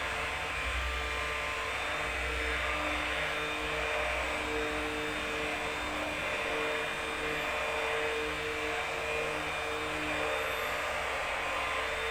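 Electric hand blender running steadily in a steel pot, churning dairy to make butter: a steady motor whine over a noise of the liquid being whisked.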